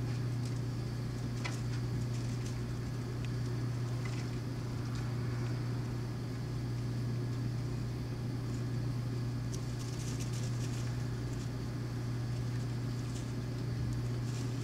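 A steady low hum, with faint scattered ticks.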